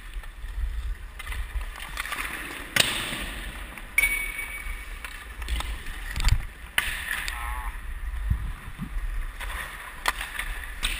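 Hockey skates scraping and carving on rink ice, with several sharp clacks of stick and puck, heard from a body-worn camera whose microphone picks up a low rumble of movement.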